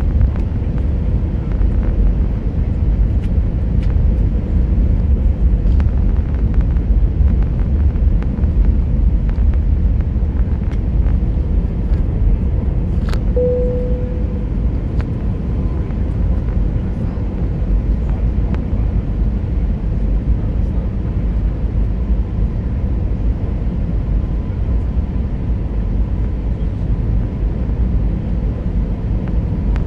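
Steady cabin drone of an Airbus A319 in flight: engine and airflow noise heard from inside the cabin, with a faint steady whine. About halfway there is a click, then a brief single tone.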